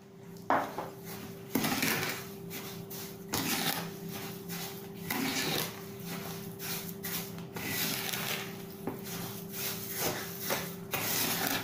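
Wooden spoon stirring and scraping sugar into melted butter in a bowl, in uneven strokes, over a steady low hum.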